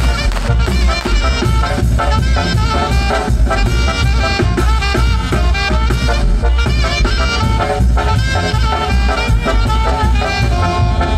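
Tamborazo band playing live, instrumental with no singing: brass and saxophones carrying the melody over a heavy, steady tambora bass drum beat.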